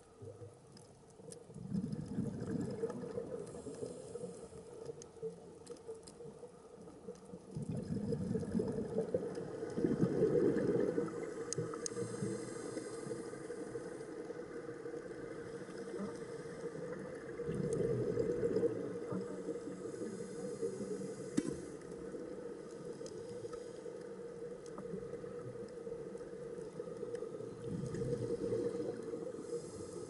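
Underwater sound of a scuba diver breathing through a regulator: bubbly exhalation surges about every eight to nine seconds, over a steady low hum.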